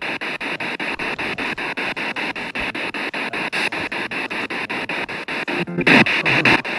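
P-SB7 spirit box sweeping through radio stations, played through a JBL portable speaker: hissing radio static chopped into quick, evenly spaced pulses as it steps from station to station. Near the end a louder snatch of radio voice breaks through, which the ghost hunters caption as the word "dobrze" ("good").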